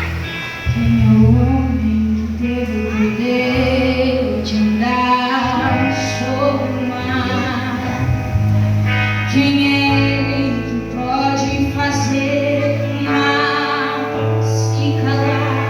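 A woman singing a church worship song over instrumental accompaniment with held bass notes that change every second or two.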